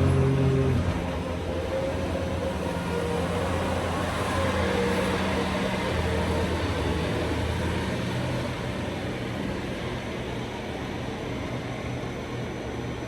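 Steady mechanical hum of an engine or motor running, a low drone with a steady higher tone over it, easing slightly about eight seconds in.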